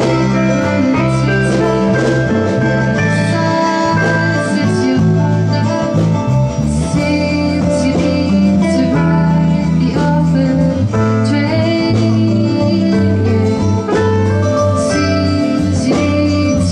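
A band playing a country-style song: strummed guitar over sustained bass notes.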